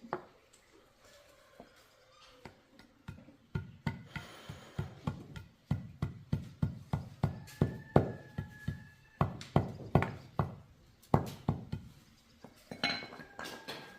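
Hammer blows on metal, a run of sharp strikes about two or three a second that stops near the end and then comes back briefly.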